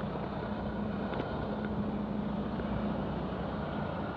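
Tractor-trailer's diesel engine running steadily, a low, even hum with a constant drone.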